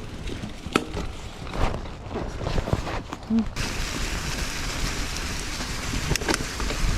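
Mountain bike ride heard from an on-board microphone: scattered knocks and rattles of the bike over rough ground, then about halfway through a steady rushing hiss sets in.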